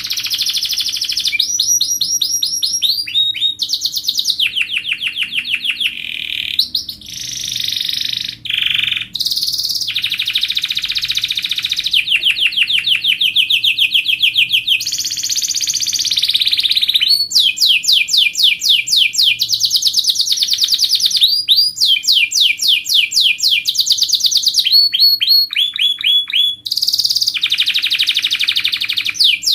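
Domestic canary singing a long, unbroken song of fast trills and rolls, switching to a new trill every second or two with only brief breaks.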